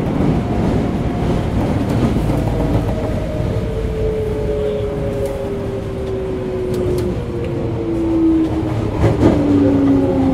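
Toei 5300 series subway car's Mitsubishi GTO-VVVF inverter and traction motors whining, with the tones falling steadily in pitch as the train slows, over wheel and rail running noise. A few clicks come about nine seconds in.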